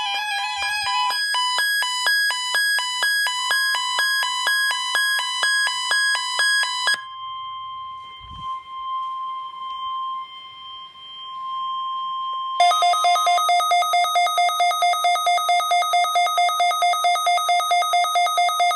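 Emergency-alert test tones. A fast run of stepping electronic beeps for about seven seconds, then a quieter steady single warning tone of the NOAA Weather Radio kind for about five seconds, then a loud, rapidly pulsing electronic alarm tone.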